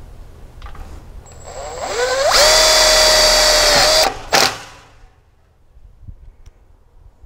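Cordless impact driver spinning up with a rising whine, then running steadily for about two seconds as it drives a self-drilling, self-tapping screw. It stops at about four seconds and gives one short second burst.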